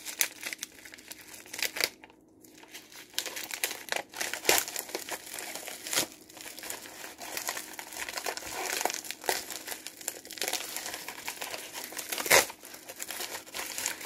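Paper mailing envelope being torn open and rummaged by hand: irregular crinkling, rustling and tearing, with a short lull about two seconds in and one louder sharp crackle near the end.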